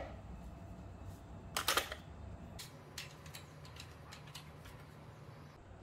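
Tools and small parts clicking and clattering as they are handled in a plastic toolbox: a burst of clicks a little under two seconds in, then scattered small ticks over a faint low hum.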